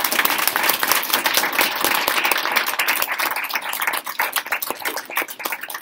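Audience applauding, dense at first and thinning out to scattered claps over the last couple of seconds.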